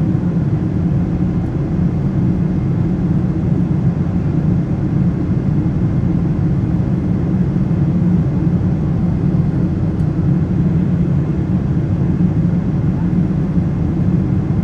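Boeing 747-8 engine and airflow noise heard inside the cabin in flight: a steady low rumble.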